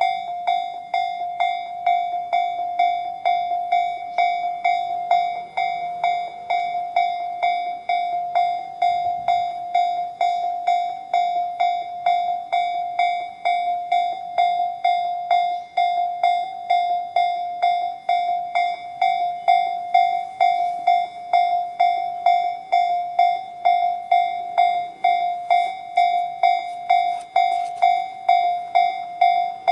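Japanese railway level-crossing electronic warning bells sounding the Tobu 'sound C' alarm from both sides. A steady repeated ding-ding of one ringing note at about two and a half strikes a second, signalling that the crossing is closed for an approaching train.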